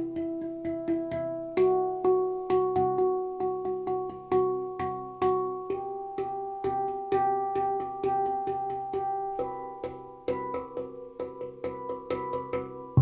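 Handpan tuned to C Aegean being played: rapid struck notes, each with a sharp attack that rings on in a sustained, bell-like tone, several notes layered at once.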